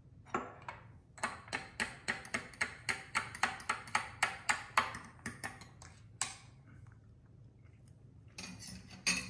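A fork clinking against a small glass bowl while stirring thick horseradish-mayonnaise sauce: quick regular clicks, about four a second, for about four seconds, then a few slower ones before stopping. A brief clatter near the end.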